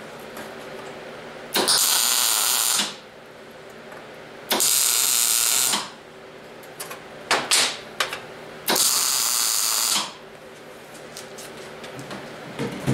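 Wire-feed (MIG-style) welder laying three short tack welds, each a crackling, sizzling arc lasting about a second, fixing a steel angle guide rail to a steel plate. A couple of short sharp sounds fall between the second and third tacks.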